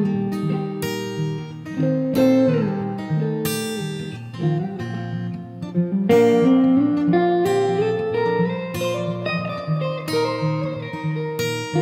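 Acoustic guitar strumming chords while an electric guitar plays a melodic lead over it, with string bends and slides, the lead climbing upward from about halfway through.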